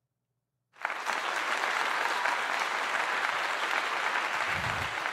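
Applause, a crowd clapping, that cuts in suddenly about a second in after dead silence and holds steady.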